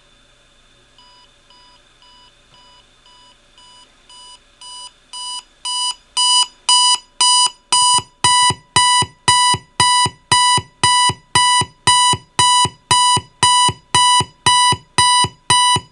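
Bose Wave Radio alarm beeping: a repeated electronic tone at about two beeps a second that starts soft and grows steadily louder over the first five seconds or so, then keeps beeping at full, loud volume. A short click comes just before the beeping begins.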